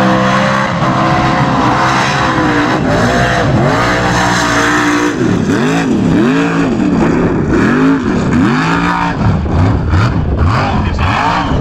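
Formula Offroad buggy's engine running at high revs, held fairly steady at first, then from about five seconds in revving up and down again and again, about one and a half times a second, as the throttle is worked on the dirt.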